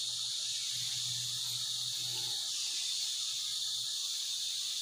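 Steady, high-pitched chorus of forest insects, a continuous shrill buzz with no breaks.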